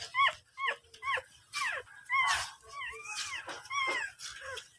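Newborn puppies squealing in a quick series of short, high cries, about two a second, each rising and then falling in pitch. They are crying for their mother, who is out of the box.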